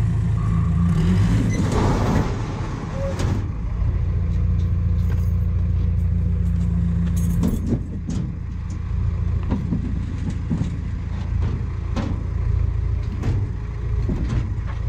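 A large motor vehicle's engine running steadily with a low rumble; a held hum in it stops about halfway through, followed by scattered short knocks.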